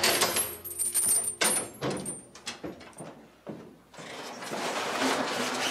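Keys and a lock being worked on a metal grille gate: a quick run of sharp metallic clicks and clinks in the first two seconds. From about four seconds in there is a steadier scraping rustle.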